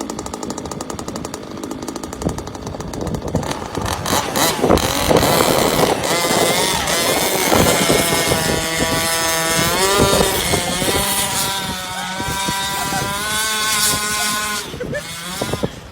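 Motor of a radio-controlled toy car running: a fast rattle at first, then a whine that rises and falls in pitch with the throttle from about six seconds in.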